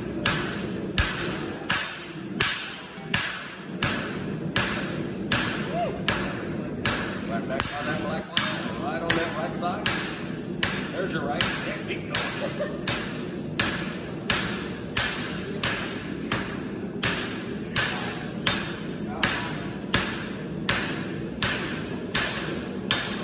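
Hand hammer striking a red-hot steel knife blank on an anvil in a steady rhythm, about one and a half blows a second, each blow with a short metallic ring.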